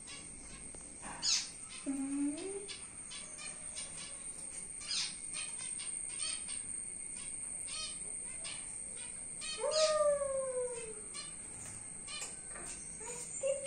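Small cage birds in an aviary chirping, a steady stream of short high chirps and tweets. A couple of brief lower pitched calls or vocal sounds sweep up and down, about two seconds in and again, loudest, about ten seconds in.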